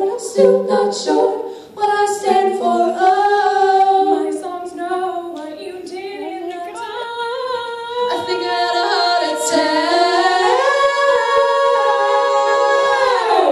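A cappella vocal group singing in harmony, with no instruments, closing on a long held chord over the last few seconds.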